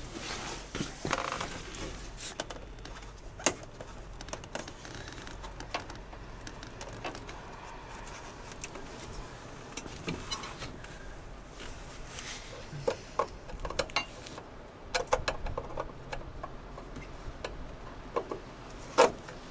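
Scattered clicks, taps and knocks of a screwdriver and small metal parts being handled at the dashboard and door pillar inside a truck cab, irregular, with a busier run of ticks about two-thirds of the way in and a sharper knock near the end.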